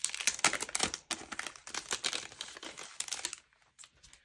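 Crinkly plastic packaging rustling as it is handled, a quick run of crackles that dies down a little over three seconds in.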